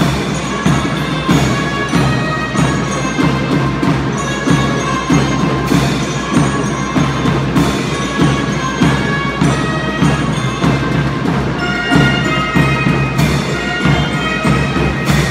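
Marching band playing a march: drums beat a steady, even rhythm under a melody line.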